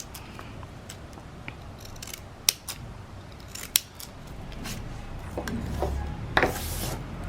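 Scissors snipping paper, trimming a small paper stamp down: a few separate sharp cuts, with a louder, longer burst of noise near the end.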